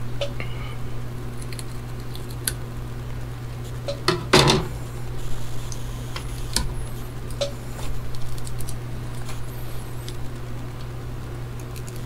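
Small scattered metallic clicks and taps from a screwdriver working on an opened hard drive, with one louder scrape about four seconds in, over a steady low hum.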